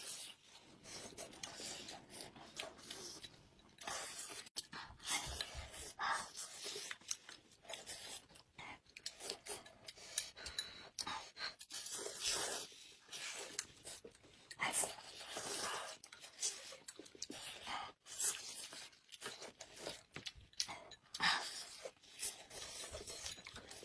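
Two people slurping and chewing hot pot noodles and greens from bowls of broth: irregular wet slurps and chewing noises.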